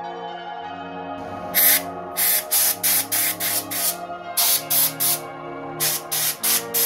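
Compressed-air blow gun giving a dozen or so short blasts in quick groups, then a longer continuous blast starting near the end, over background music with held notes.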